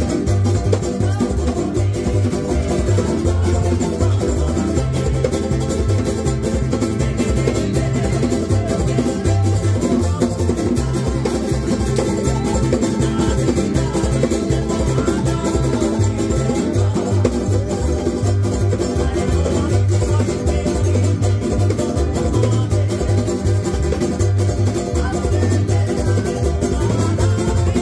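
Tahitian string band playing kaina music: rapidly strummed ukulele-type instruments with an electric guitar and an acoustic guitar, over a steady low bass beat.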